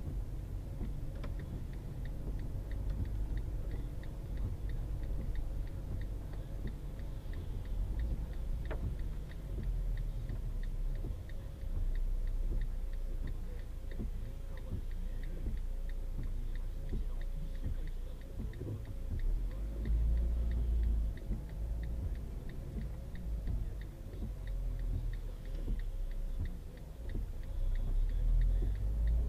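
Low rumble of a car on the move, picked up by a dashcam's built-in microphone inside the cabin, with faint regular ticking.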